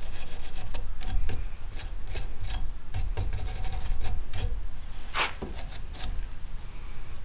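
Bronze brush scrubbing the grease-gummed extractor groove at the breech of a Lakefield Savage 64B .22 rifle: quick, uneven back-and-forth strokes of bristles on steel, with one louder, longer scrape about five seconds in.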